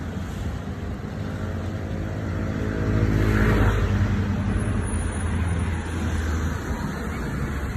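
A motor vehicle passing close by, loudest about three and a half seconds in, its engine note dropping as it goes past, over a steady rumble of road traffic.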